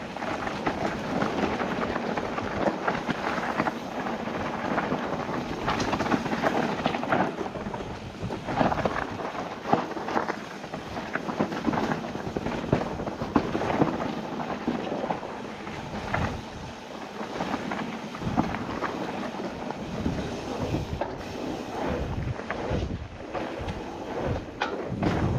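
Nukeproof Mega 275 mountain bike riding down a dirt jump trail: tyres rumbling over the ground, with irregular knocks and rattles over bumps and landings and wind on the microphone.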